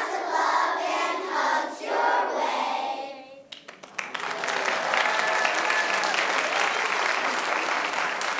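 Large children's choir singing the final phrase of a song, stopping about three seconds in. About a second later the audience breaks into applause that keeps going.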